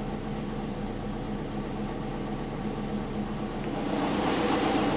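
Turbocharged Subaru EJ20 flat-four engine idling steadily at an even pitch while its idle is being tuned, the mixture reading slightly lean of target. Near the end a rushing noise swells up over the idle.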